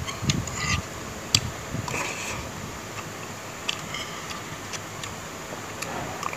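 A person eating rice and boiled chicken: chewing, and several sharp clicks of a metal spoon and chopsticks against the plate, over a steady background hiss.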